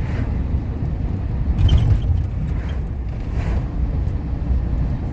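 Chevrolet C1500 pickup cruising, heard from inside the cab: a steady low engine and road rumble that swells slightly about two seconds in.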